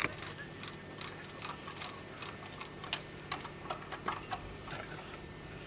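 An insulator string's discs and metal fittings clicking and clinking irregularly as it is handled. The clicks come several times a second and thin out after about four and a half seconds.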